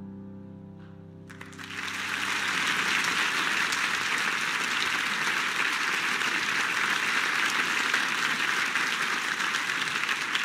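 A final piano chord dies away, and about a second in an audience breaks into applause, steady dense clapping that carries on to the end.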